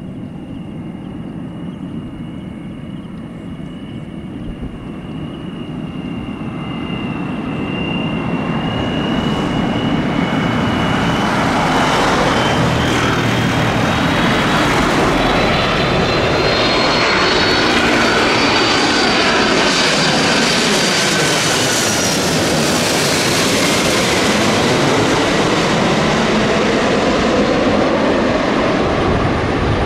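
Airbus A330-300 jet airliner on final approach with gear down, passing low overhead: engine roar that grows louder over the first dozen seconds and then stays loud. A high engine whine rises in pitch as the aircraft nears, then drops once it has gone past and flies away.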